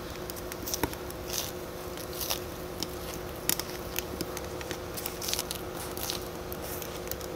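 A man chewing a big mouthful of fresh minari (water parsley) with grilled pork belly. Many short crisp crunches and wet clicks come irregularly, over a faint steady hum.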